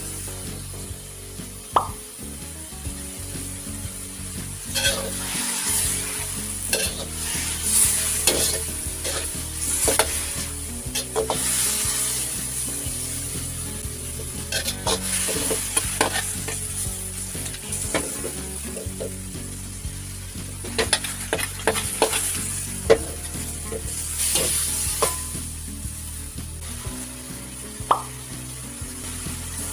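Beef cubes sizzling in a sauce in an aluminium wok while a metal spatula stirs them. The sizzle is a steady hiss under irregular clicks and scrapes of the spatula on the pan.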